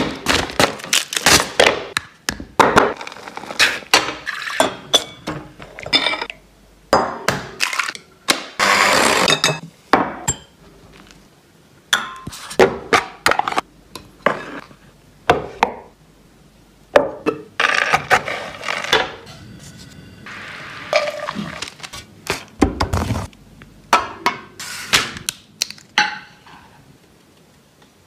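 Close-up kitchen handling sounds: metal moulds and utensils clinking and knocking on the worktop and plate, mixed with short stretches of scraping and rustling. The sounds come as many separate knocks and clicks and die away a couple of seconds before the end.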